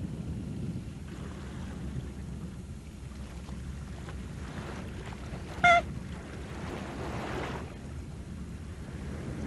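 Soft, steady ambience of wind and sea water, with one short high-pitched squeak a little past halfway.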